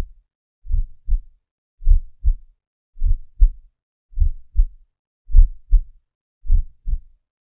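Heartbeat: paired lub-dub thumps repeating steadily about once a second, roughly 50 beats a minute, six beats in all, a slow resting rhythm.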